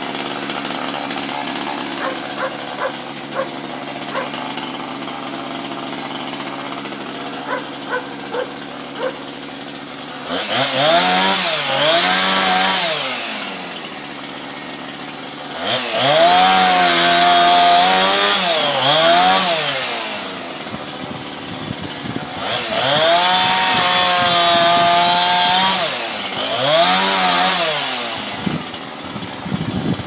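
Gasoline chainsaw idling steadily for about ten seconds, then revved up to full speed four times to cut through tree limbs, dropping back to idle between cuts.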